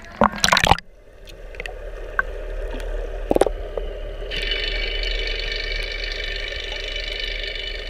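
Splashing as the camera goes under the water, then muffled underwater sound: a low steady rumble with a click or two, and a steady high whine joining about four seconds in, typical of boat motors heard through the water.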